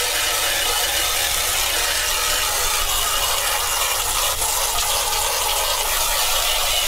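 Garden hose jet spraying onto a cedar shake shingle with a steady hiss, rinsing the cleaning solution and loosened fungi off the wood at ordinary garden-hose pressure.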